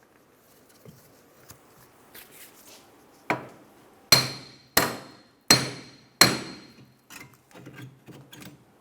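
Sharp metal-on-metal hammer blows knocking a seized rear wheel hub and bearing assembly out of the knuckle. Five loud, evenly spaced strikes, each ringing briefly, are followed by a few lighter knocks near the end.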